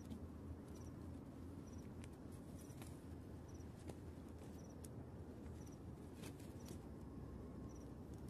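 Faint low outdoor rumble with scattered light taps and rustles as a freshly landed fish and fishing line are handled on a stony shore. A faint high triple tick repeats roughly once a second.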